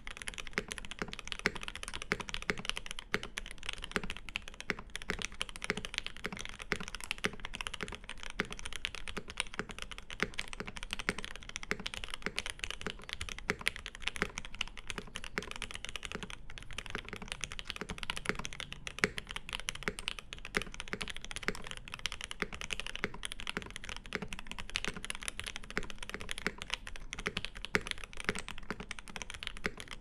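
Continuous fast typing on a MODE Eighty mechanical keyboard with lubed Lil' Tykes switches, an aluminium plate and GMK keycaps: a steady, dense stream of keystroke clacks that never pauses.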